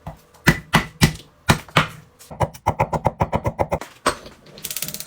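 A series of sharp knocks: a few spaced strokes, then a fast run of about eight a second, and near the end a brief burst of quick, high-pitched ticking.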